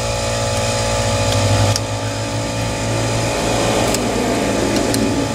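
A steady mechanical hum, with a few light clicks and some rustling of hands working among plastic intake parts in a pickup's engine bay.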